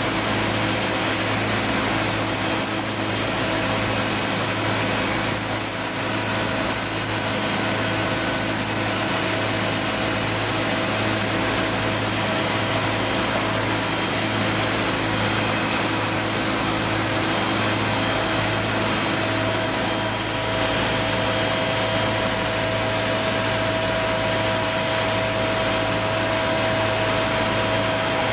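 Steady industrial machinery noise from a hot coil spring winding line: a constant hiss over a low hum, with a thin high whine that drops a little in pitch over the first several seconds and then holds.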